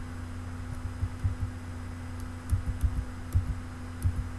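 A few short clicks with soft low thumps, bunched in the second half, from a computer being clicked through presentation slides, over a steady low electrical hum.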